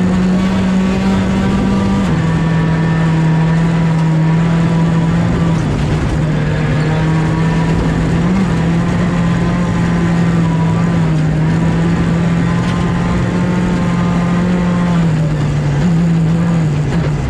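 Skoda Fabia R5 rally car's turbocharged 1.6-litre four-cylinder engine, heard from inside the cabin, held at high revs. The pitch steps down and climbs again every few seconds with quick gear changes, over a steady wash of tyre and road noise.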